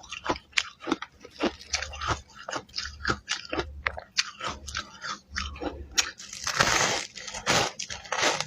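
Ice being bitten and chewed: a run of sharp, separate crunches, then a denser, louder stretch of crunching from about six seconds in.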